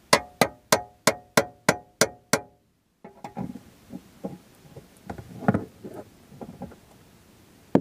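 A steel tire iron strikes metal eight times in quick succession, about three blows a second, each with a short ring, knocking at a jammed boat-seat pedestal. After a short break come softer, irregular clanks and clicks as the tire iron is fitted into a scissor jack and turned, with one sharper knock at the very end.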